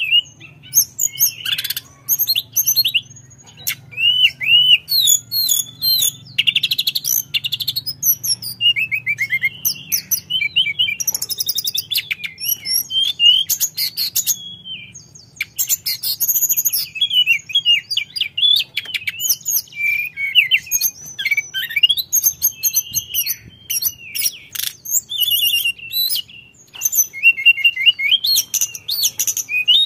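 Hill blue flycatcher (tledekan gunung) singing almost without pause: a rapid, varied stream of high whistled notes, slurs and quick trills. There are brief breaks about three seconds in and halfway through.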